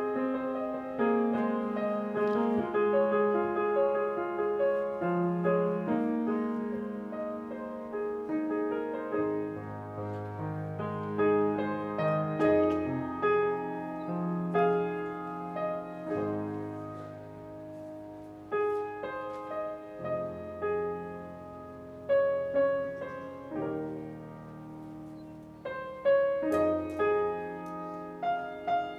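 Solo grand piano, a Yamaha, playing an arrangement of a worship song in sustained chords. Deeper bass notes join about a third of the way in, and several louder struck chords stand out in the second half.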